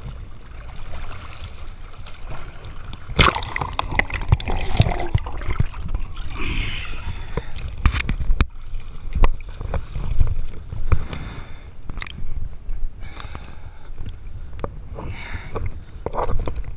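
Water sloshing and gurgling around a swimmer climbing the stern ladder of a half-sunken sailboat, with scattered sharp knocks of hands and feet on the ladder and hull, over a steady low rumble.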